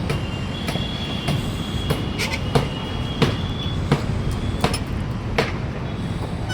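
Formwork being put up on a building site: irregular sharp metal clanks and knocks, about one every half second to one second, over a steady low rumble, with a thin high squeal or ring sounding through the first few seconds.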